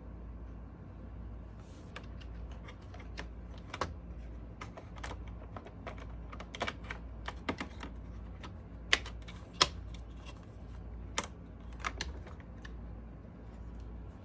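Light, irregular plastic clicks and taps from a Roomba J7 robot vacuum's parts being handled as its brush rollers are fitted back in, with two sharper clicks close together about nine seconds in.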